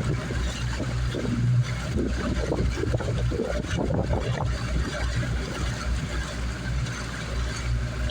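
A motorboat's engine running steadily under way, a continuous low hum.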